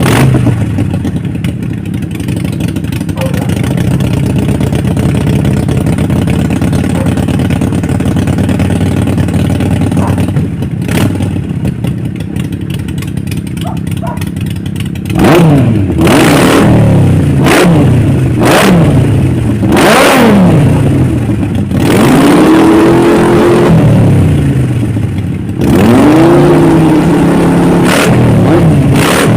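Motorcycle engines idling together, a Harley-Davidson Sportster 883's V-twin and a Triumph Street Triple 900's three-cylinder. About halfway through, one engine starts being revved in a series of quick throttle blips, each rising and falling back to idle, with two revs held a little longer.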